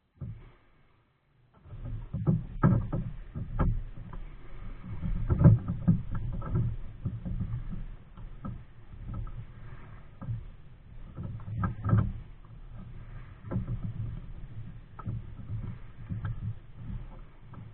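Nelo Viper 55 kayak being paddled: irregular splashes of the paddle blades in the water and knocks against the hull, starting about a second and a half in.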